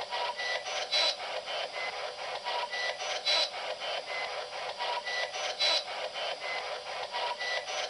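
P-SB11 spirit box sweeping through radio stations: choppy static and snippets of broadcast pulsing about five times a second, with a few louder bursts. The investigators take one fragment for a voice answering "sí".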